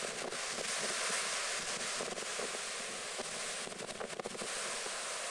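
Storm-surge waves breaking over a sea wall and washing up a concrete slipway, a steady rushing surf, with wind buffeting the microphone and a few crackles about four seconds in.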